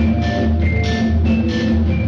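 Percussion ensemble playing: marimbas sounding quick melodic notes over drums struck in a steady beat.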